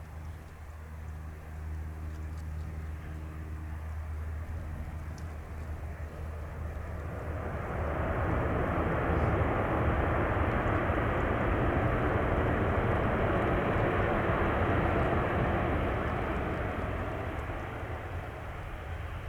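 Boeing 737-800's CFM56 jet engines during landing: a low steady hum, then about eight seconds in a loud roar builds, holds for several seconds and fades away.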